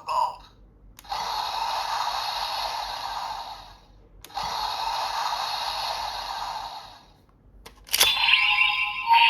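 Electronic sound effects from a toy's small speaker, each set off by a click of a button. A click is followed by about three seconds of noisy rushing effect, a second click by another similar effect, and a louder click near the end by a new effect with a steady tone.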